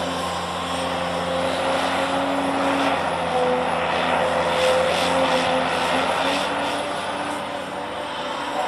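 A large engine running steadily, with a faint high whine over the drone for most of the time.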